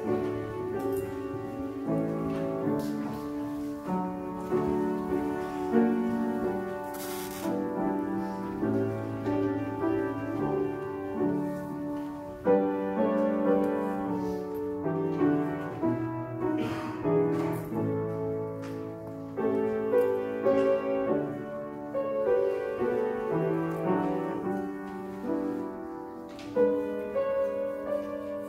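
Grand piano playing a slow piece of held chords.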